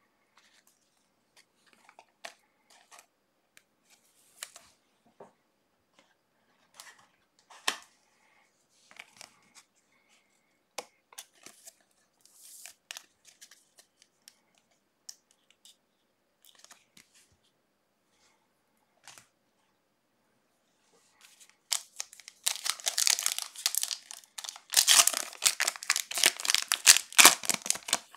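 Faint scattered rustles and clicks of trading cards being handled. About 22 seconds in comes loud, crackly tearing and crinkling as a card pack wrapper is ripped open.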